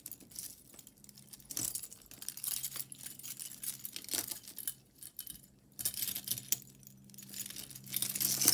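Metal chain necklaces and bead strands jingling and clinking against each other as they are picked up and pulled out of a pile of costume jewelry by hand, in irregular bursts of small clinks.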